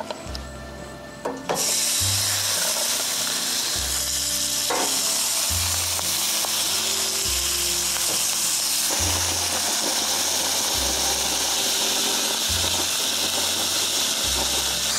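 Split, butter-coated marron sizzling on a red-hot barbecue hotplate: the sizzle starts suddenly about a second and a half in as the crayfish go onto the plate and holds steady and loud, with a couple of light knocks as more are laid down. Background music with a slow bass line runs underneath.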